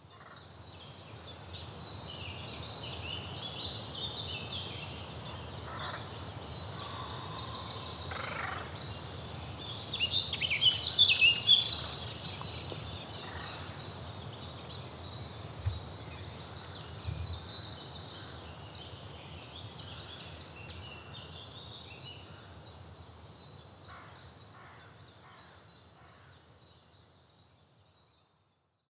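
Birds calling, many short chirps together. The sound fades in, is loudest about ten to twelve seconds in, then fades away.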